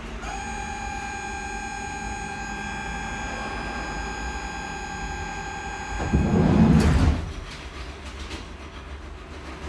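HÉV suburban train door-closing warning: a steady high tone sounds for about six seconds, then the doors shut with a loud clatter about six seconds in, over the low hum of the stationary train.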